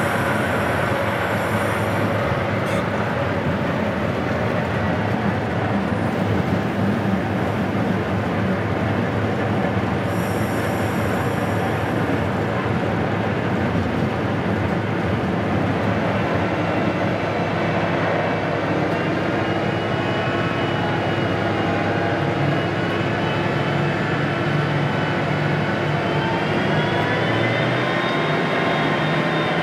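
Class 55 Deltic locomotive's twin Napier Deltic two-stroke diesel engines running under way, heard in the cab together with wheel and track noise. A high squeal sounds briefly twice, near the start and about ten seconds in. Over the second half a whine climbs in pitch.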